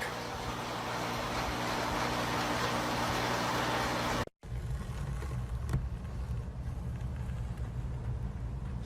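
Car on the move: a steady engine hum under road and wind noise, which cuts off suddenly about four seconds in. A low, uneven rumble follows.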